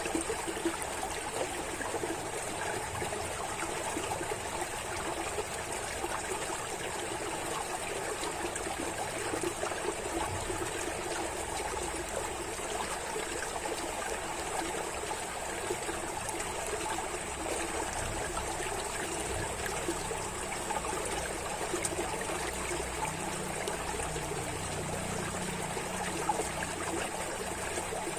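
Flowing water trickling steadily and without a break, like a small stream.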